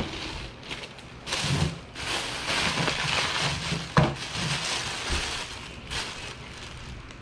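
Thin plastic shopping bag rustling and crinkling as it is handled and opened, in uneven bursts, with a sharp click about four seconds in.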